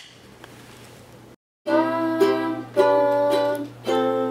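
Ukulele strummed, starting about a second and a half in after a brief dropout, with the chord changing a few times. Before it, faint room tone.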